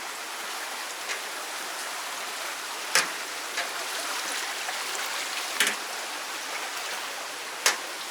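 Steady rush of falling water from a waterfall, with three sharp knocks a couple of seconds apart breaking through it.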